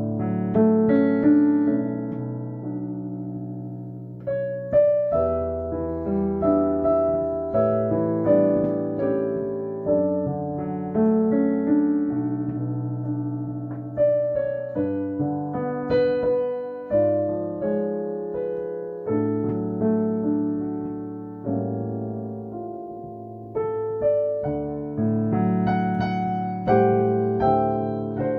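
Kurzweil CUP 302 digital piano playing a slow hymn arrangement, with full chords struck and left to ring and a new chord or melody note about every second.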